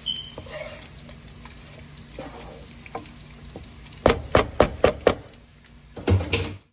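Cooked brinjal rice being stirred and tossed in a pan, a low rustling scrape. About four seconds in comes a quick run of five sharp knocks, the loudest thing here, and two more follow near the end.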